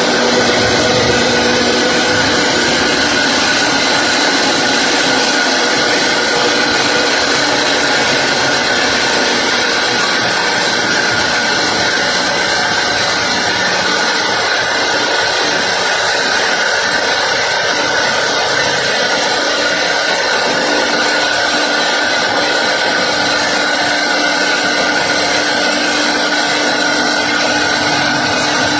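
Sawmill machinery running and sawing wood continuously: a loud, steady noise with a few held whining tones on top and no breaks or changes in pace.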